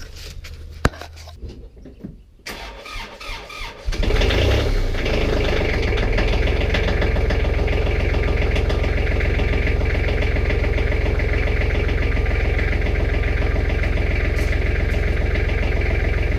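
A 2004 Kubota L3430 tractor's diesel engine cranks and catches about four seconds in on a cold start, then idles steadily and loudly. Its battery sounds a little weak.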